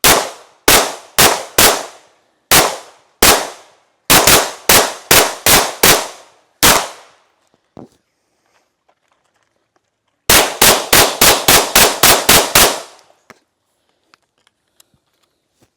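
Gunshots from a firearm at a shooting range: about fourteen shots at an uneven pace over the first seven seconds, then after a pause of a few seconds a rapid string of about ten shots, roughly four a second.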